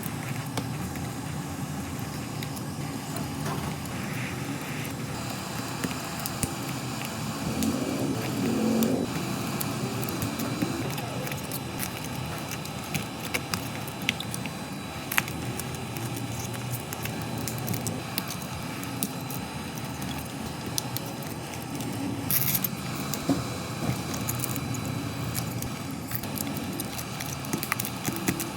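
Scattered light clicks and ticks of small tools working on a cracked phone back glass, over a steady low hum.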